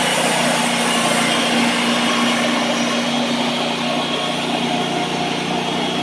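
Wood-Mizer portable bandsaw sawmill running steadily, its engine holding an even speed with no change in pitch.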